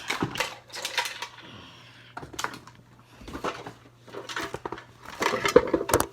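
Hard toys clattering and knocking as they are handled and set down, a quick run of clicks and clacks that grows into a louder burst of clatter near the end.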